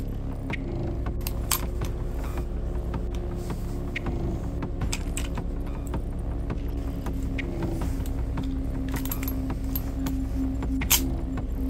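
Small metallic clicks and clinks of an airsoft revolver's cylinder being loaded with shells from a speedloader, a few scattered clicks with the sharpest near the end, over a steady low hum.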